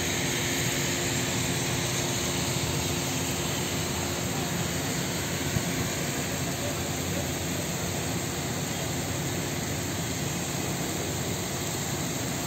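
Heavy rain pouring steadily onto a wet road and trees, a dense unbroken hiss. There is one brief click about halfway through.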